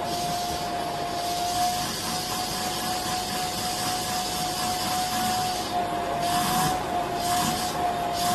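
Vacuum cleaner running steadily, a constant whine over rushing air, as its hose nozzle is drawn over a cat's fur.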